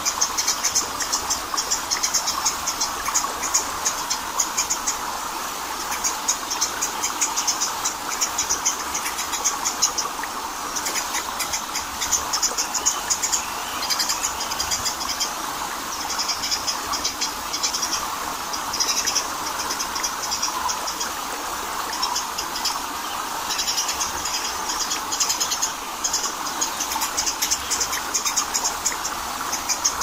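Small waterfall running steadily over granite rock, a continuous rushing of water. Over it, a rapid high-pitched trilling chorus pulses on and off, breaking off several times.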